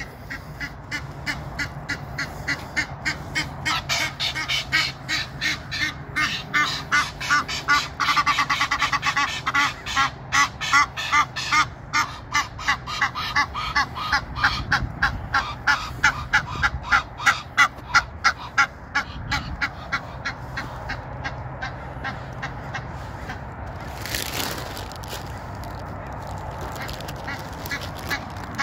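Egyptian geese calling: a long run of rapid, rhythmic honking that stops for a few seconds near the end, then starts again just before the close, with a brief rush of noise during the pause.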